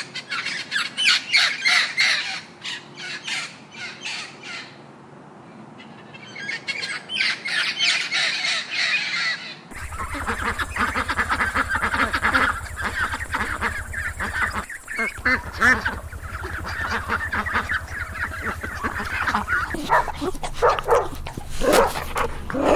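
Sun conures squawking in a quick run of calls, then, about ten seconds in, a flock of white domestic ducks quacking. Near the end, dogs barking as they play.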